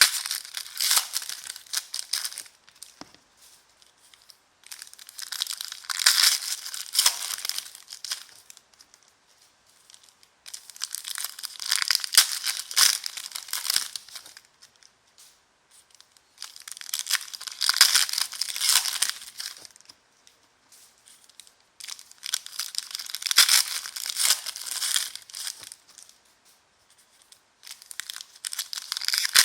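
Crinkly wrappers of trading-card packs being torn open and handled, in about five separate stretches of crisp rustling and tearing, each a few seconds long, with short quiet gaps between them.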